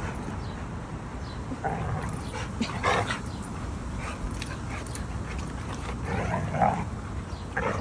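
Several dogs playing rough and wrestling, giving short vocal bursts a few times, loudest about three seconds in and again around six and a half seconds.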